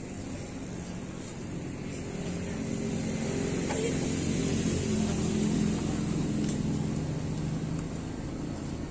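A motor vehicle's engine running, growing louder over a few seconds and then easing off, with a low crowd murmur beneath.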